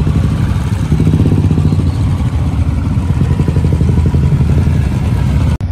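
Several single-cylinder motorcycles, Royal Enfield-style, running at low speed in a group, a dense low engine pulse.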